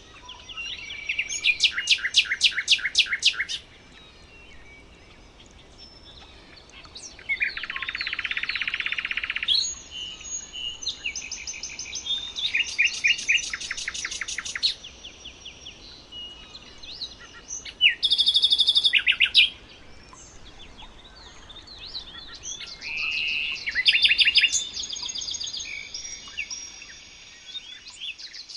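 Songbirds singing in a run of separate phrases of fast, rapidly repeated high notes, each a second or few long, with short pauses between. One phrase near the middle is a lower, buzzy trill. A faint steady hiss runs underneath.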